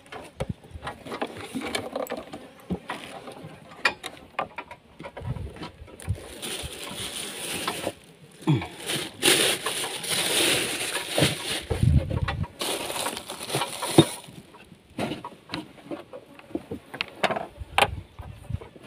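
A plastic bag rustling and crinkling as it is handled, with scattered clicks and knocks from things moved about on a wooden boat. The rustling is heaviest through the middle stretch.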